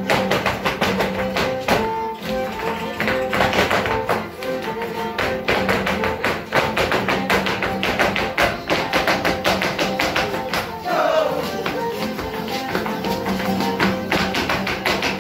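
Live folk dance music for the Negritos dance, with a guitar among the instruments. Over it, the dancers stamp a fast, even rhythm with their feet on a concrete floor.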